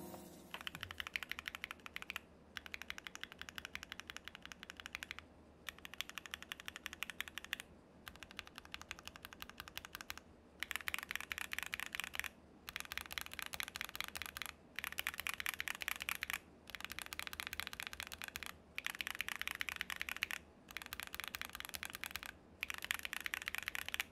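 Typing on a Keychron Q2 mechanical keyboard with Akko Jelly Black linear switches in a steel plate: runs of fast, clacky keystrokes broken by short pauses every two to three seconds. The switches are heard both factory-lubed and re-lubed with Krytox 205g0, and the keystrokes grow louder from about ten seconds in.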